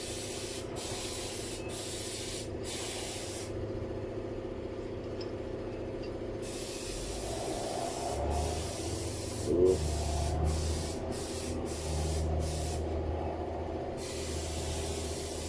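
Steady hissing noise over a low hum, with a short knock about nine and a half seconds in.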